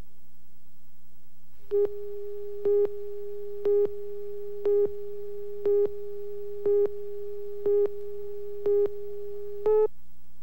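Countdown beeps on a video tape slate: nine short electronic beeps about one second apart over a fainter steady tone, the last beep slightly higher and louder, with a low tape hum underneath.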